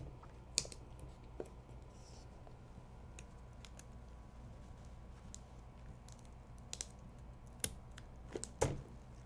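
Scattered light clicks and taps of hands handling a laptop LCD panel and its video cable, a few of them sharper, the loudest near the end, over a low steady hum.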